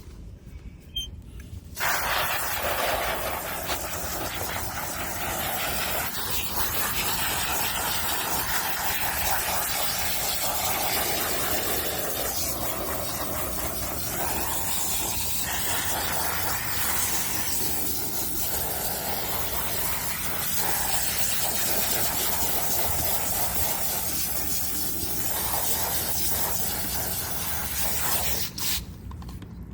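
Water running and spraying steadily onto dog bedding as it is rinsed with plain water. It starts about two seconds in and stops near the end.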